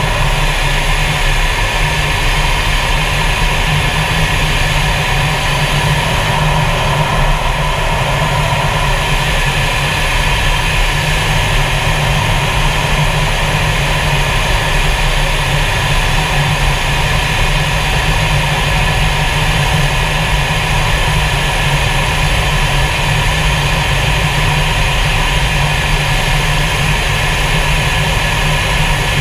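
Steady cockpit noise of a fighter jet in flight: engine and airflow rumble with a constant high whine, unchanging throughout.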